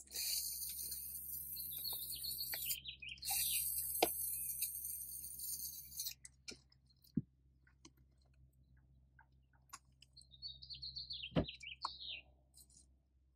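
Rattle-can spray paint hissing in two long bursts as a coat is sprayed on, with a light knock partway through. Afterwards come scattered light knocks and clicks, and a quick run of high chirps shortly before the end.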